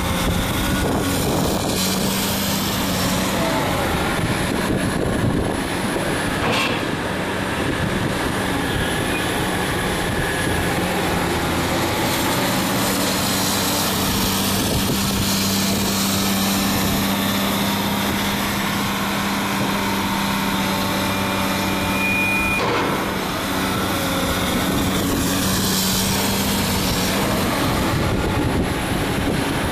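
Engine of the bucket machine loading sludge into a truck, running steadily with a constant low hum. A brief high whine about two-thirds through.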